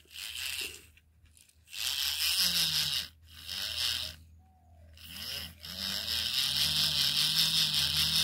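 Small electric motor and gears of a homemade toy tractor buzzing as it drives its wheels through mud, in short bursts at first, then running steadily from about halfway through.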